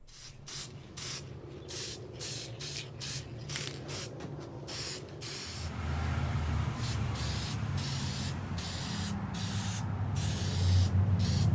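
Aerosol spray paint can (Krylon) hissing in a quick run of short spurts, then in longer sprays with short breaks from about halfway, as a coat of paint goes on. A low hum sits underneath in the second half.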